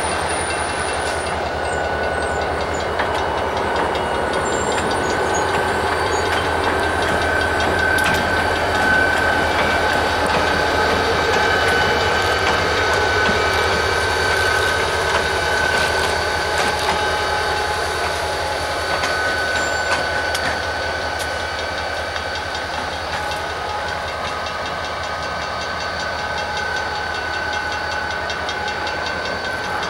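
Two diesel locomotives running light past the listener and pulling away down the track: engines running with a steady high whine over them and some wheel clicks on the rail, loudest in the first half and slowly fading as they recede.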